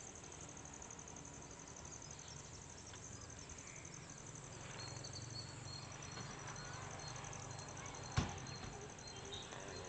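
Outdoor ambience of insects: a steady, high, rapidly pulsing trill, with faint short high bird-like notes from about five seconds in. One sharp click about eight seconds in is the loudest sound.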